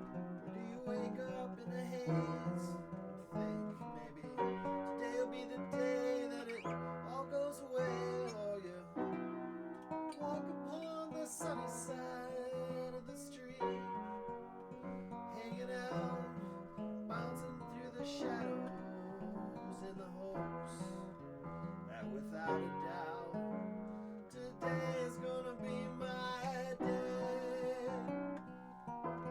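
Acoustic guitar playing a tune, a steady run of plucked notes.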